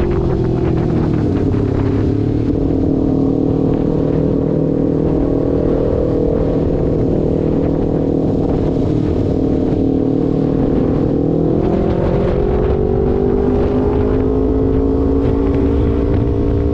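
Kawasaki Ninja 250's parallel-twin engine running through an aftermarket R9 GP SS exhaust at steady revs. The pitch dips slightly a second or two in, holds, then climbs gently after about eleven seconds.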